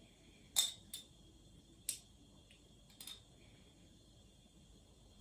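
Four light clinks of kitchen utensils against dishes, spread over a few seconds, the first the loudest.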